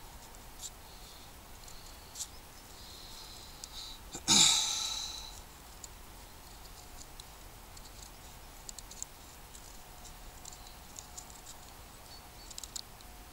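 Condor Bushlore knife whittling a thin wooden stick: scattered light scraping and clicking strokes of the blade on the wood. About four seconds in comes one much louder, sharp sound that trails off over about a second.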